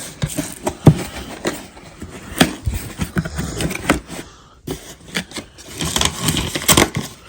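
A cardboard box and its packaging being handled just after opening: irregular scraping, rustling and sharp knocks, busiest near the end.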